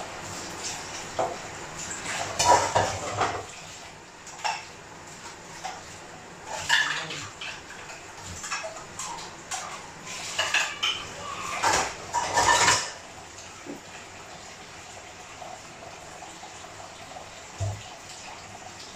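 Dishes and cutlery clinking and clattering as they are washed by hand in a kitchen sink, in irregular bursts through the first two-thirds, then quieter.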